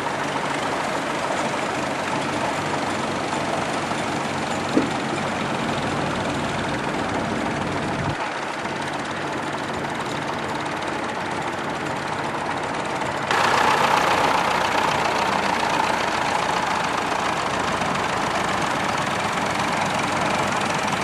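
Farm tractor engine running steadily at low revs. About two thirds of the way through, a sudden louder hiss joins it.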